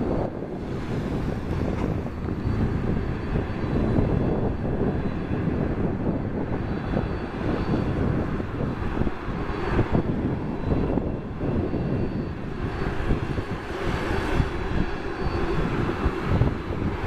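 Boeing 767-300F freighter's General Electric CF6 turbofan engines running as the jet rolls along the runway: a steady rumble with a faint high whine.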